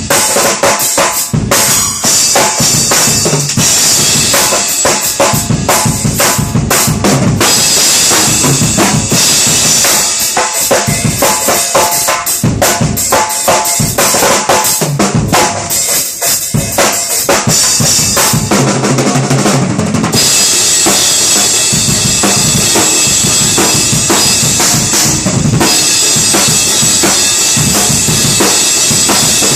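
Acoustic drum kit played freestyle: a busy mix of bass drum, snare and cymbals in a loose, swung groove. In the second half a steady cymbal wash runs over the hits, and near the end the low drums come forward.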